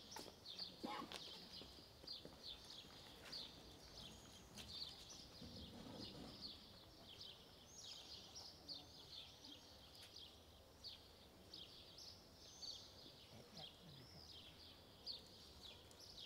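Faint outdoor birdsong: many short, high chirps repeating quickly and irregularly throughout, over quiet ambience.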